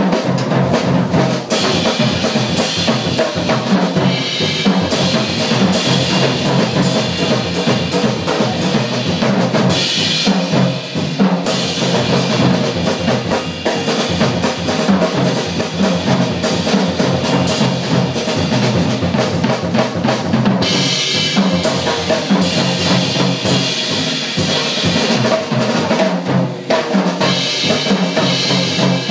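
Live jazz with the drum kit to the fore, played densely throughout, over plucked upright bass.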